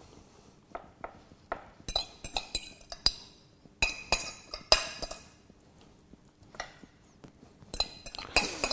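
Metal spoon scraping and clinking against a ceramic plate as marinade is spooned out of it, in short runs of clicks with quiet gaps between.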